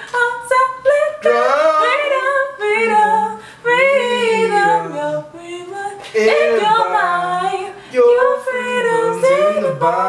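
A woman singing a cappella, unaccompanied, with held notes that slide up and down in pitch.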